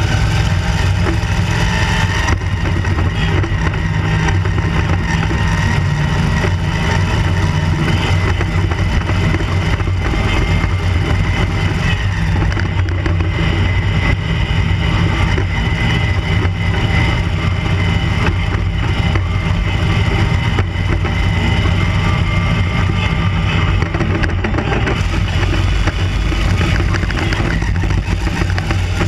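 Roll-caged off-road sand buggy's engine running steadily at speed, heard up close from a camera mounted on the buggy itself.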